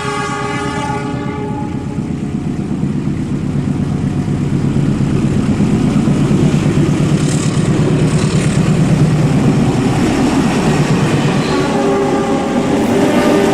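Train sound: a diesel locomotive horn fading out in the first second or so, then the rumble and clatter of the train running along the track, with the horn sounding again near the end.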